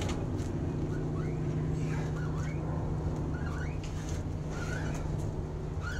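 A steady low hum with a handful of short, curving high squeaks scattered through it, which sound like a puppy.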